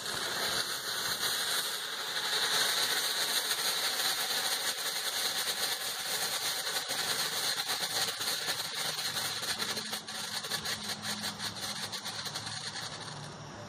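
Black Cat 'Flashing Signals' ground fountain firework hissing steadily as it burns, with rapid crackling clicks through the middle as it flashes; the hiss weakens near the end.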